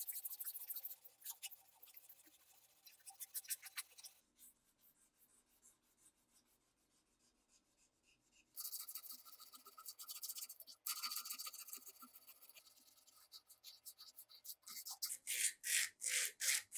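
Strip of abrasive cloth pulled back and forth, shoeshine-style, across the steel of an old pair of pliers clamped in a vise: hand sanding in several spells with a quiet pause in the middle. Near the end come short, firm strokes about three a second.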